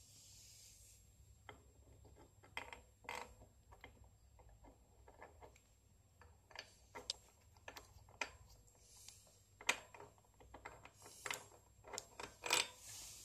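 Irregular light metallic clicks and knocks of a hex-headed tool being handled and fitted against the end of a BMX crank's hollow spindle.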